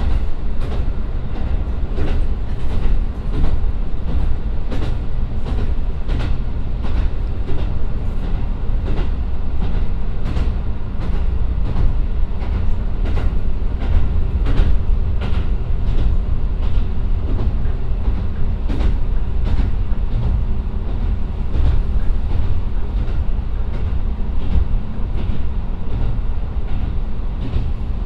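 Interior running noise of a JR Kyushu KiHa 125 diesel railcar with its DMF13HZ engine, cruising between stations: a steady low engine drone and rumble with frequent sharp clicks of the wheels over the track.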